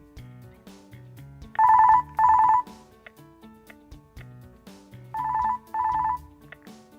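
Jabra Speak 410 speakerphone ringtone: two pairs of short trilling double rings over soft background music. The second pair is quieter, as the ringer volume is turned down.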